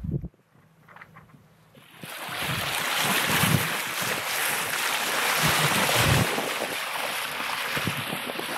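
Sea water rushing and splashing along a sailing yacht's bow, with wind buffeting the microphone in irregular low thumps. It starts suddenly about two seconds in, after a quiet moment.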